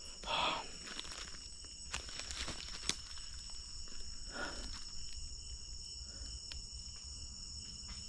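Crickets and other night insects trilling steadily at several high pitches, with a couple of soft rustles, about half a second in and again about four and a half seconds in.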